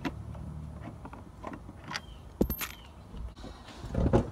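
Scattered light clicks and knocks of hands working at a pickup truck's seat base and plastic interior trim, with a low hum in the first second and a louder knock near the end.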